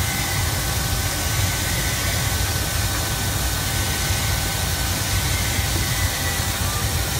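A CNC stone machining center's spindle running an edge tool around a sink cutout in a stone slab under a water coolant spray. It makes a steady grinding hiss over a low hum, with a faint high whine.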